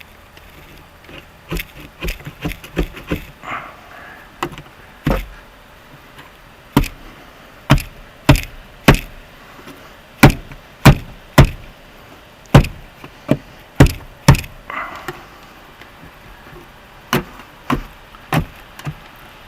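A series of sharp, irregularly spaced knocks, about two dozen, coming every half second to a second and loudest in the middle.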